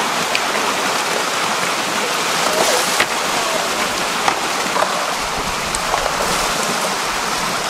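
Steady rush and splash of water pouring from inlet pipes into a shallow tank crowded with eels, with water sloshing as eels are netted. A few sharp knocks and splashes cut through, the clearest about three and four seconds in.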